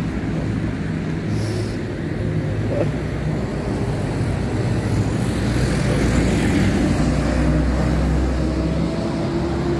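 Street traffic: a motor vehicle's engine running with a low steady hum under road noise, growing louder for a few seconds in the middle.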